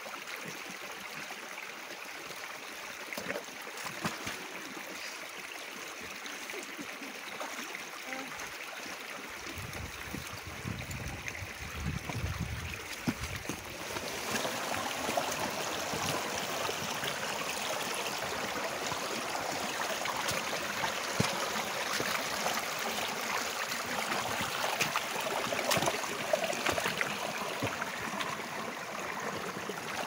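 Shallow rocky stream running and babbling around wellington boots as someone wades through it, with scattered splashes from the steps. The water gets louder about halfway through and stays so.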